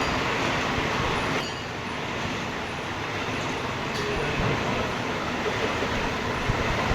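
Heavy-duty roll-turning lathe running, a steady mechanical rumble and hiss that drops in level suddenly about a second and a half in.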